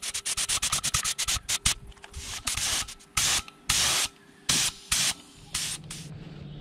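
Compressed-air spray gun spraying paint in trigger bursts: a quick run of brief hissing spurts, then several longer blasts of about half a second each.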